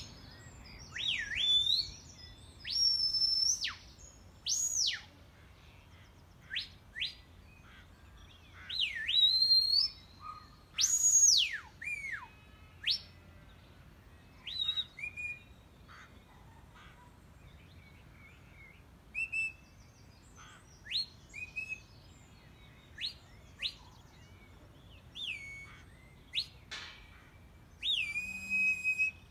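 Shepherd's whistle commands to working sheepdogs: irregular series of sharp rising and falling whistle notes, some short chirps, some long swoops. The loudest is a long swooping note about eleven seconds in, and near the end one note is held steady.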